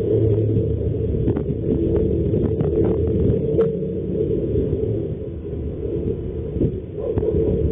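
Steady low rumbling noise with a few faint clicks scattered through it.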